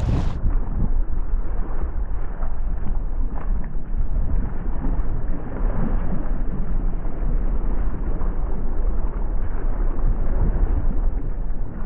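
Strong wind rumbling on the microphone, dull and muffled, over choppy water as a sea kayak is paddled into the wind and waves.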